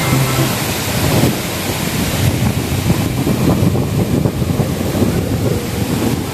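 Waterfall rushing in a steady, dense wash of noise, with wind buffeting the microphone.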